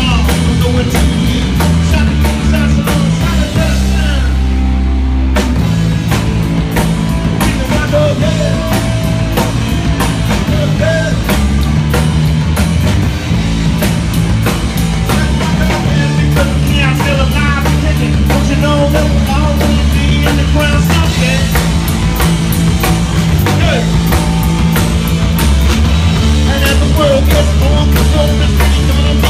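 Rock band playing loud and live: electric guitar, electric bass and drum kit. About four seconds in, the drums and cymbals drop out for a moment while the low notes hold, then the full band crashes back in.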